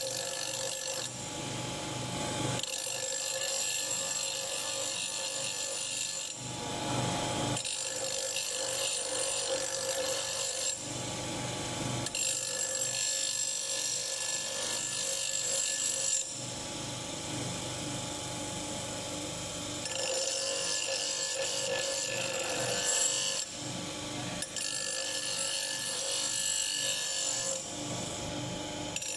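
Bench grinder running steadily while an iron hammer head is ground on its wheel. The grinding noise comes in passes of a few seconds each, easing off briefly each time the metal is lifted from the wheel, over the motor's steady hum.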